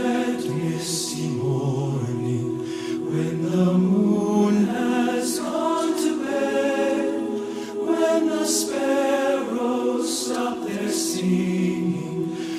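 Choir singing slowly, several voices in harmony on long held notes.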